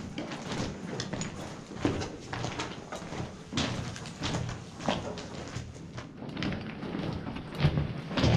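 Footsteps of a person walking steadily along a disused railway tunnel's floor, a regular series of short scuffing knocks about every half second.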